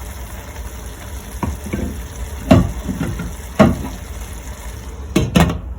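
Efo riro (spinach stew) with palm oil sizzling in a pot over a low flame, with a few sharp knocks of a utensil against the pot, two of them close together near the end.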